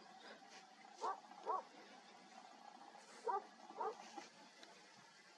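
A dog barking faintly: two quick barks, then another two about two seconds later.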